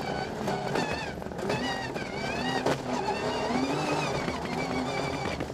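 Rally car engine heard from inside the cabin, revving hard and rising in pitch, then dropping back again and again as the gears change at speed on a gravel stage. A few sharp knocks sound from the rough ground under the car.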